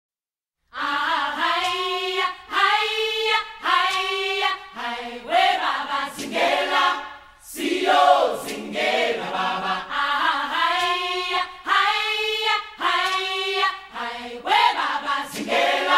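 Choir-like singing: voices sing a chant in short held phrases of about a second each, with brief breaks between them, starting just under a second in.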